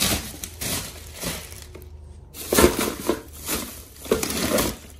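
Shopping bags and packages rustling and knocking as they are carried and handed over, in a series of irregular bursts, loudest a little past halfway and near the end.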